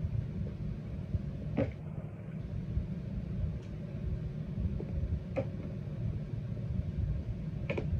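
Steady low background rumble, with a few faint short clicks spread through it.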